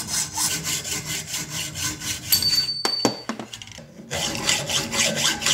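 Hacksaw cutting metal bar stock clamped in a bench vise, in quick, even strokes. It stops a little after two seconds, with a brief high tone and a couple of clicks, and the sawing starts again near four seconds.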